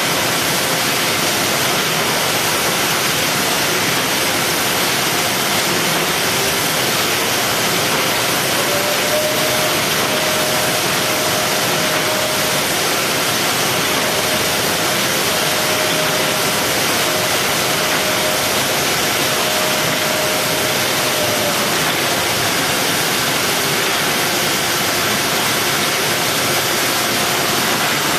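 Steady, even hiss and hum of the machinery on a robotic box-palletizing line. A faint high whine sounds for several seconds in the middle.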